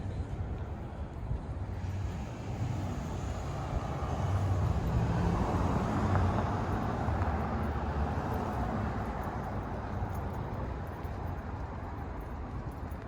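Road traffic: a vehicle passing, its noise swelling to a peak about halfway through and then fading away.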